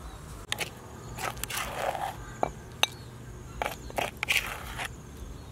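Scattered scrapes and sharp clicks of a metal spoon scraping pounded paste out of a wooden mortar and tapping it into a ceramic bowl, with one louder click about halfway through.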